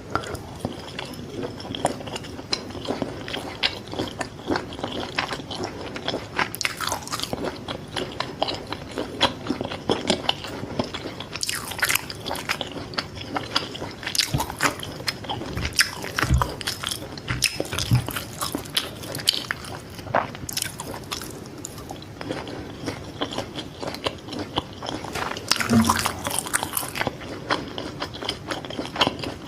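Close-up chewing and biting of fried fish balls: a steady run of irregular crunchy clicks and crackles, with a few louder bites along the way.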